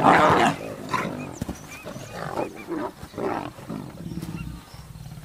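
Young African lions play-fighting, giving a string of short growling vocalisations, loudest right at the start.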